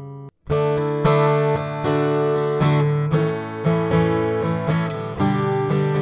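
Journey Instruments folding carbon-fibre acoustic travel guitar being played: a ringing chord stops abruptly just after the start, and after a brief gap the guitar resumes with a run of strummed and picked chords struck every half-second to a second.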